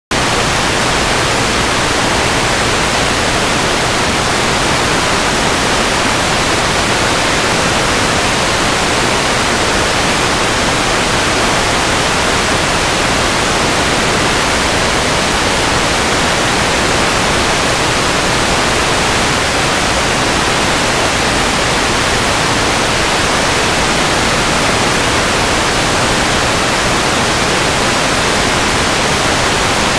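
Loud, steady static hiss, spread evenly from low to high pitch and unchanging throughout: recording noise with no speech or other sound in it.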